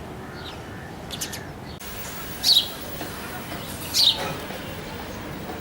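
House sparrows chirping: two loud, short chirps that drop in pitch, about a second and a half apart in the middle, with fainter chirps before them, over a steady background hiss.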